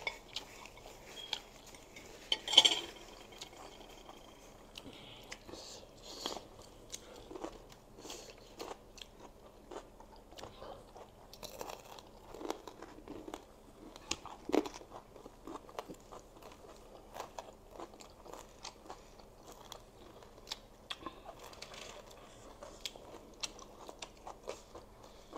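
People chewing and crunching food, with many small mouth smacks and clicks. A single sharp knock about two and a half seconds in is the loudest sound.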